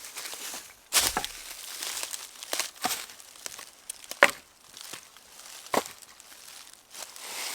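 Irregular sharp cracks and crinkling rustles of dry material, a dozen or so separate snaps and crunches, the loudest about a second in and past the middle.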